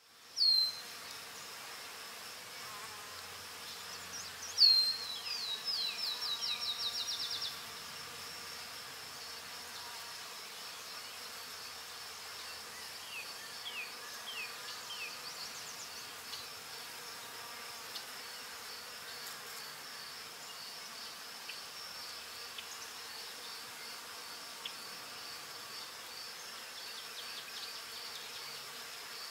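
Insects chirring in a steady, high, faintly pulsing buzz. A sharp falling chirp comes right at the start, and a run of about a dozen quick falling chirps, about four a second, comes around five to seven seconds in.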